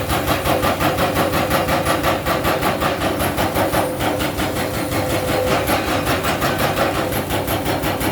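Heavy excavator's diesel engine running steadily, with a rapid even pulse and a held hum.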